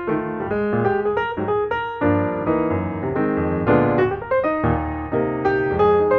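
Background piano music: quick notes over sustained chords.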